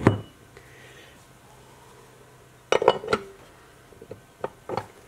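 Metal parts of a Honda S600 chain-drive rear end clinking and knocking against each other as they are fitted onto the axle shaft by hand. There is a sharp knock at the start, a quick cluster of clinks a little past halfway, and a few lighter clicks near the end.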